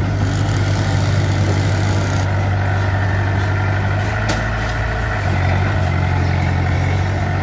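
Heavy diesel engine running steadily, with a single sharp click about four seconds in and a slight shift in the engine note about a second later.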